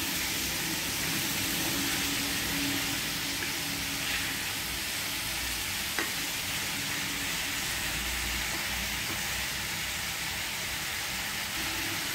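Pork cubes and sliced onions sizzling in a nonstick pan as they are stirred with a wooden spatula: a steady frying hiss, with one light tap about halfway through.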